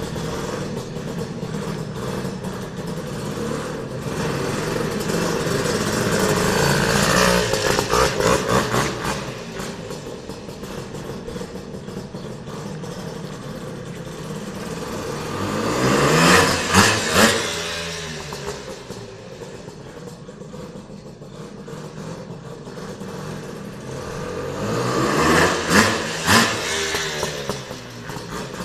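A WSK M21W2-based scrambler's single-cylinder two-stroke engine running as the motorcycle is ridden round, its note swelling and fading three times as it comes close and revs, with short throttle blips at the loudest points, then dropping back to a quieter run as it rides away.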